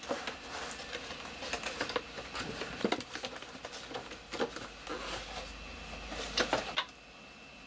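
Cardboard retail box being handled and its top flap pulled open: an irregular run of rustles, scrapes and small taps of the packaging in the hands, thinning out near the end.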